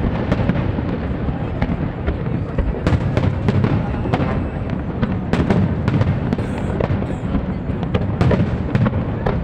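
Aerial fireworks going off in rapid succession: a dense run of sharp bangs and crackles over a continuous low rumble.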